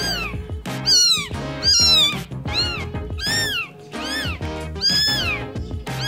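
Eight-day-old tabby kitten crying: a quick run of about eight high, thin mews, each rising and then falling in pitch, a little under one a second.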